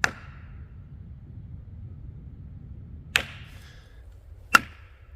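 Three sharp knocks from a homemade knocker: one, then a pause of about three seconds, then two more in quick succession, the last the loudest, each with a short ringing tail.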